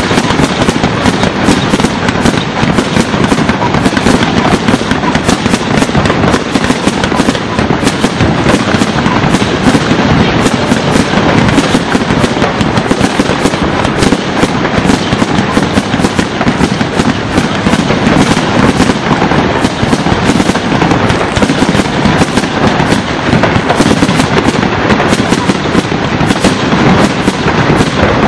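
Firework fountain throwing up white sparks and red crackling stars, giving a loud, dense, unbroken crackle of many rapid small pops.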